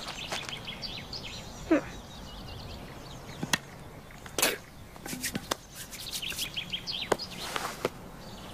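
Quiet outdoor ambience with birds chirping, broken by a few short, sharp knocks and scuffs about three and a half, four and a half and seven seconds in.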